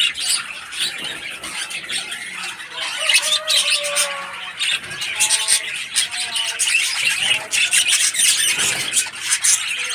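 Parrots and sparrows chirping and squawking without a break, many short calls overlapping, with a few lower drawn-out calls between about three and six seconds in.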